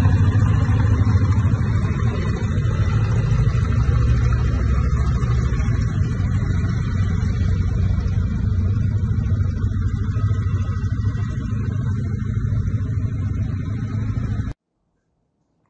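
Helicopter running overhead: a steady, loud low rumble that keeps an even pitch, then cuts off suddenly near the end.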